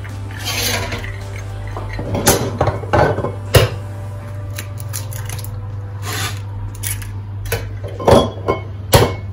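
Eggs being cracked into a wooden bowl: sharp knocks of shell striking the bowl, the strongest in a cluster a few seconds in and again twice near the end, with softer crackling of the shells between them. A steady low hum runs underneath.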